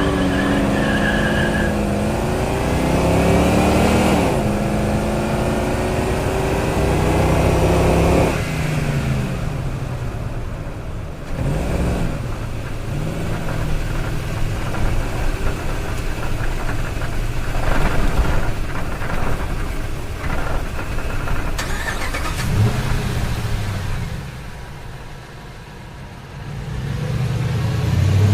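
Light truck's engine accelerating, its pitch climbing in steps through the gears for the first eight seconds before dropping away. It then runs rougher with shorter rises and falls, eases off into a quieter stretch near the end, and builds again.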